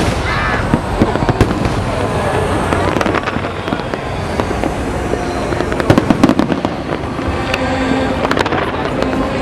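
Fireworks going off: a dense, continuous crackling with many sharp bangs all through, the loudest cluster about six seconds in.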